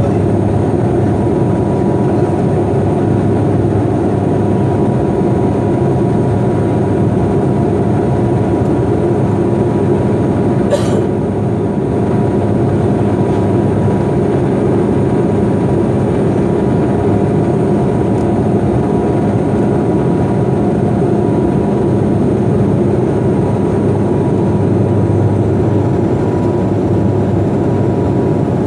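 Steady cabin drone of a Bombardier Q400 twin-turboprop airliner on approach with its landing gear down, heard from inside the passenger cabin: a constant, loud hum with a few steady engine and propeller tones.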